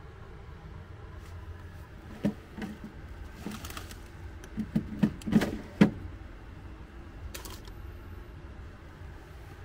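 Crinkly plastic snack bags, a potato-chip bag and a pretzel-stick bag, being handled and rustled in a minibar fridge, heard as a cluster of crackles and light taps between about two and six seconds in. A low steady hum runs underneath.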